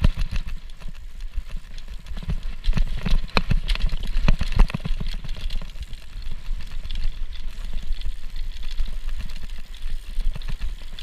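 Mountain bike rattling and clattering down a rough, snowy trail, heard through an action camera mounted on the rider: a steady low rumble with frequent knocks, thickest about two to five seconds in.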